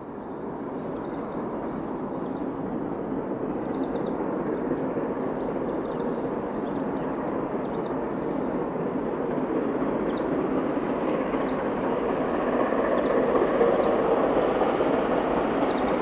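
Two Great Western Castle-class steam locomotives, 7029 Clun Castle and 5043 Earl of Mount Edgcumbe, double-heading a train as it approaches, its sound growing steadily louder.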